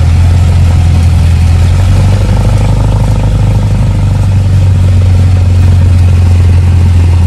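Cessna 172's piston engine and propeller running steadily on the ground after landing, a loud low drone heard from inside the cabin.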